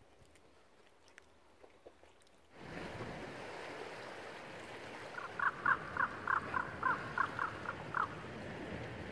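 Quiet at first. After a few seconds a steady outdoor wind noise comes in, and about halfway through an animal call is repeated about ten times in quick succession over some three seconds.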